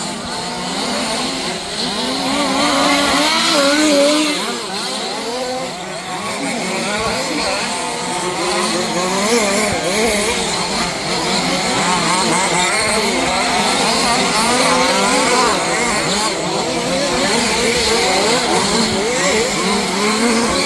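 Several 1/5-scale petrol two-stroke RC off-road cars racing together. Their engines rev up and down with overlapping, constantly shifting pitches as they accelerate and brake around the track.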